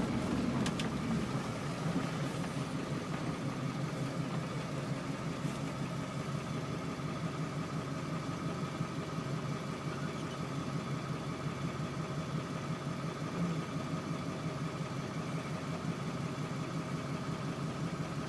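Steady hum of a car's engine running, heard from inside the cabin.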